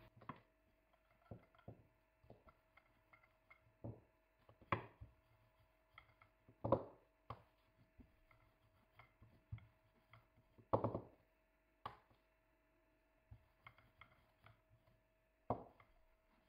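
Wooden rolling pin rolling dough out thin on a floured silicone mat: faint, irregular soft knocks and thuds, with a few louder ones about seven and eleven seconds in.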